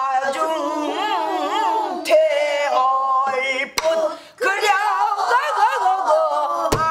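A woman singing pansori: one unbroken melismatic line with wide, wavering vibrato and bending pitch. A buk barrel drum keeps time under it, struck sharply with a stick about four seconds in and twice in quick succession near the end.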